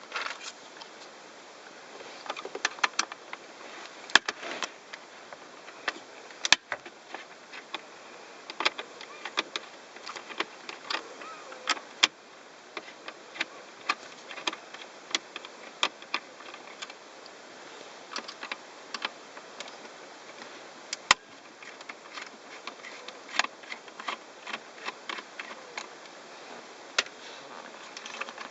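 Plastic interior trim of a car's center console being handled and worked loose: scattered irregular clicks and light knocks, a few at a time with short gaps between.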